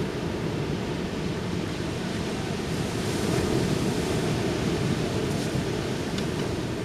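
Ocean surf washing onto a beach: a steady rush of noise that swells a little about three seconds in.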